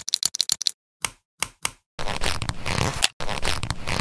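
LEGO Technic plastic parts handled and snapped together by hand: a quick run of sharp clicks, then a few single clicks, then about two seconds of plastic rubbing and scraping.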